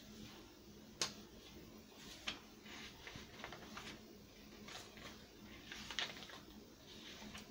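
Paper and card pages of a handmade journal being turned by hand: soft rustles with a few sharp flicks, the sharpest about a second in, another just after two seconds, and more around six seconds.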